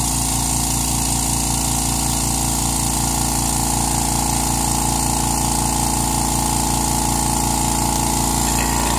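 California Air Tools 2010A 1 hp oil-free air compressor running steadily as it fills its 2-gallon aluminum tank, heard close to the intake, where most of its noise comes from. A steady hum with a fast, even pumping pulse.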